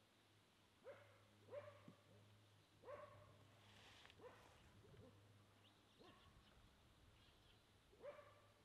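Faint dog barking: about seven short, separate barks at uneven intervals, over a low steady hum.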